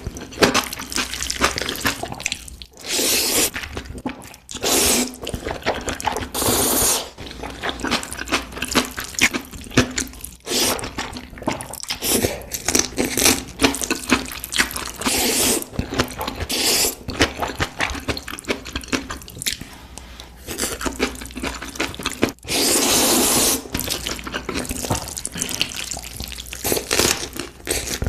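Close-miked wet eating sounds of spicy seafood: smacking, chewing and slurping, with a few longer slurps among rapid wet clicks.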